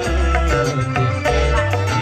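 Kecimol band music through loudspeakers: a heavy, repeating bass line under held keyboard notes and a steady drum beat, with a man singing into a hand microphone.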